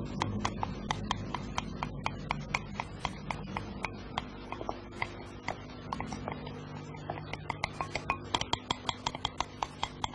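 A utensil beating against the side of a bowl while mixing: quick, regular clicks, about four a second, speeding up near the end, over a low steady hum.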